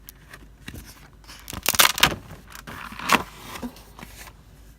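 Paper and plastic packaging being handled, with rustling, crinkling and small clicks. The loudest rustles come about two seconds in and again about a second later.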